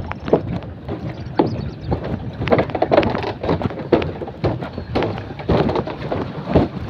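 Footsteps knocking and clattering on a walkway of loose bamboo poles, in an uneven string of hollow knocks.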